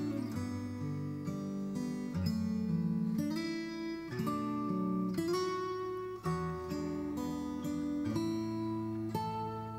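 Music: a strummed acoustic guitar playing chords that change about once a second.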